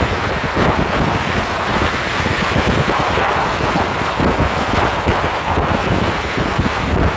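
Loud, gusty wind noise on the microphone over the sound of vehicles on the road.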